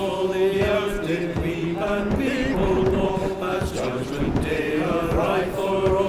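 Voices singing a slow, chant-like hymn in long held notes.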